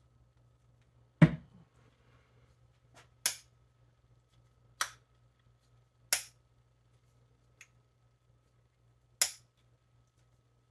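Michael May Sheffield traditional pocketknife blade snapping open and shut, a sharp click every second or so, about six in all, the first loudest with a dull knock under it. The pivot has just taken a drop of light gun oil, and the blade is worked to bring its snap back after straightening in a vise.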